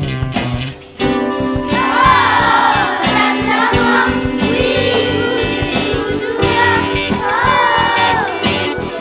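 A group of children singing a French chorus in unison over instrumental backing. The music drops away briefly just before a second in, and the voices come in about two seconds in.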